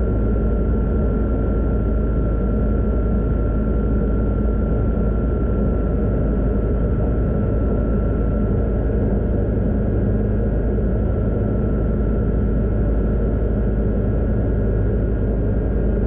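Steady cockpit noise of a Van's RV-12iS in flight: the Rotax 912iS engine and propeller running evenly with a deep rumble and wind rush. A thin steady whine sits above it and sinks slightly in pitch past the middle.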